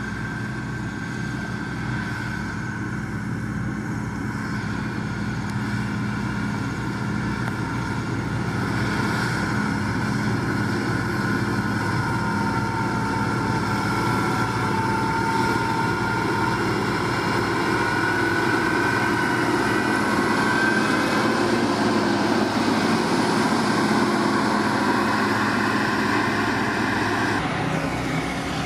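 Diesel engine of a Liugong motor grader running steadily under load while it spreads gravel, with a high whine over the engine note. The sound changes abruptly near the end.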